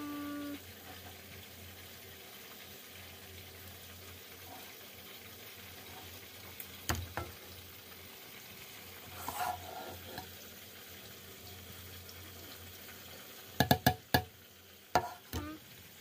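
Bowl of hot caramelized sugar being tilted and swirled by hand over a faint steady hiss. There is a single knock about seven seconds in, and a quick run of sharp clicks and knocks from the bowl near the end.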